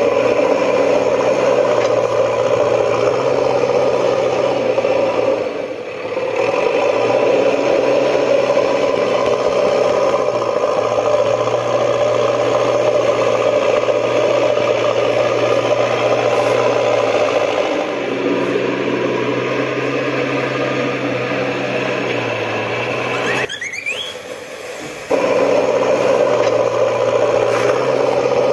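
A steady, loud, engine-like whirring drone with a squeal in it. It dips briefly about six seconds in and cuts out for a second or two near the end, where a short rising whistle sounds.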